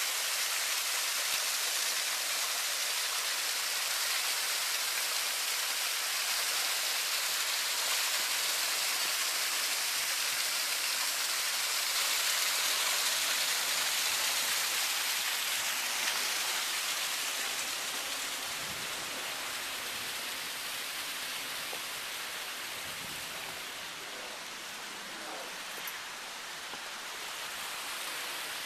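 Steady rushing and splashing of water from a landscaped garden waterfall, easing off a little after about seventeen seconds.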